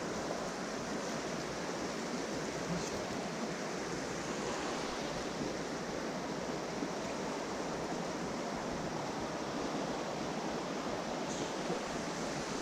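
Mountain stream water rushing steadily, an even unbroken hiss.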